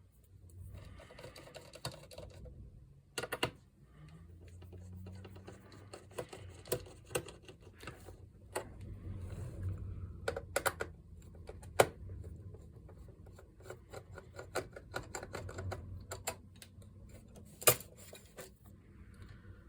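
Scattered sharp clicks and light taps of a screwdriver on the laptop's bottom-cover screws and of its plastic case being handled, over a steady low hum. The loudest clicks come about twelve seconds in and again near the end.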